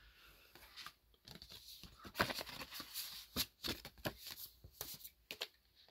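Handling noise from a cardboard photo box: a disc and card and paper contents being moved about, an irregular run of light clicks, taps and rustles.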